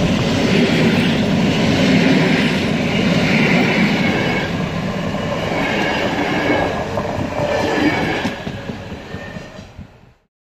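Double-deck passenger coaches rolling past close by, their wheels clattering on the track, with a high squeal coming and going. The sound fades as the last coach passes and then cuts off suddenly about ten seconds in.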